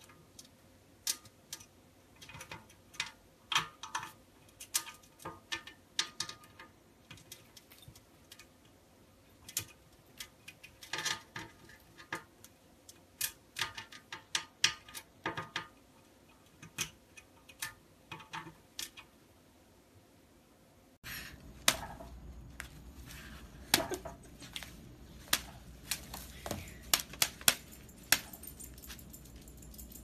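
A metal hanging parrot toy with beaded chains and charms rattling and clicking in irregular sharp ticks as a caique beaks and tugs at it. About two-thirds of the way through, the background noise jumps up and more scattered clicks and taps go on.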